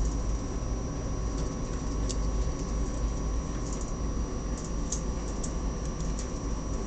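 Faint, irregular light clicks and scratches of pet rats' claws scrambling on a wire cage and carpet, over a steady low rumble and a faint electronic whine.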